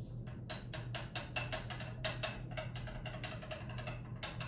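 Drops of 0.5 molar hydrochloric acid falling fast from a glass burette into a flask of dissolved antacid, a quick run of short plinks about six a second, over a steady low hum.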